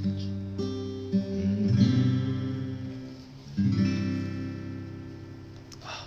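Acoustic guitar strumming the closing chords of a song: a few chords struck in the first two seconds, then a last chord about three and a half seconds in, left to ring and fade away.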